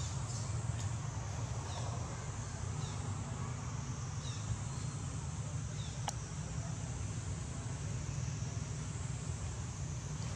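Outdoor ambience: a steady low rumble with a few short, high animal chirps in the first half, and a single sharp click about six seconds in.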